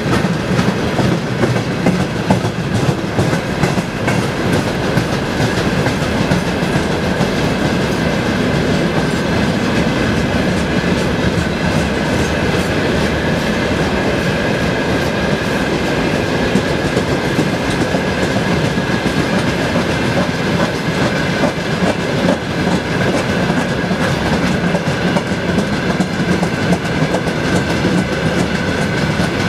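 Long freight train of hopper cars, tank cars and open gondolas rolling past. The wagons make a steady rumble, with wheels clicking over rail joints and a steady high ring above it.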